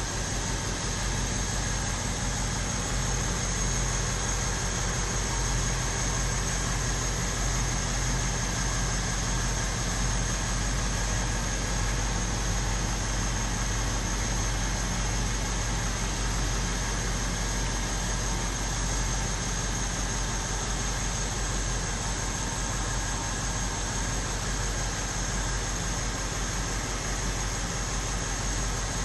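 BMW X5 4.8is's 4.8-litre V8 idling steadily, an even low hum.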